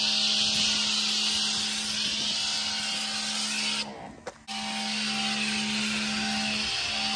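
Greenworks Pro 3000 PSI electric pressure washer spraying soap through a foam cannon: a steady hiss of spray over the hum of the electric motor and pump. Both cut out for about half a second about four seconds in, then start again.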